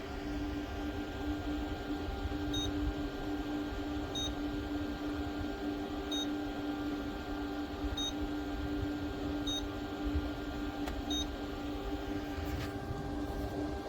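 Small portable evaporative air cooler's fan running steadily at high speed, a humming tone over a low rumble, with six short high beeps about every one and a half to two seconds.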